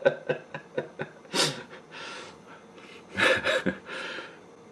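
A person's breathy snorts and exhalations in short bursts: one about a second and a half in, then a quick cluster of three a little past three seconds in, each trailed by a softer breath.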